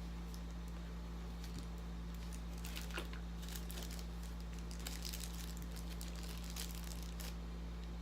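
Faint crinkling of plastic packaging and scattered small clicks as spare camera batteries are handled, over a steady low hum.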